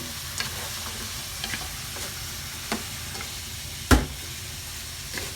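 Chicken sizzling as it fries in a pan, stirred with a utensil that clicks against the pan a few times, with one louder knock about four seconds in.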